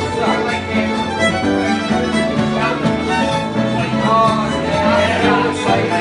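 Two fiddles playing a Scottish traditional tune together, with acoustic guitar and piano accompaniment.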